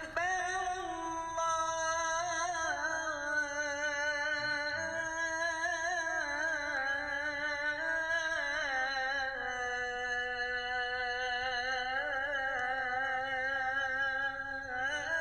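A single voice singing long, wavering, ornamented notes in one unbroken line.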